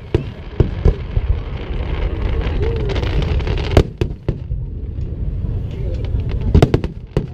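Fireworks display bursting overhead: scattered sharp bangs and cracks over a steady low rumble, with a quick cluster of bangs near the end.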